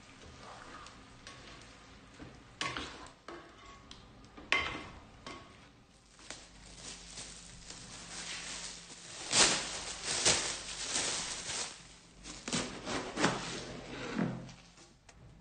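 A few sharp knocks against a stainless steel pot, then the crinkle of cling film being pulled off a head of lettuce, and a knife crunching through the lettuce onto a wooden chopping board.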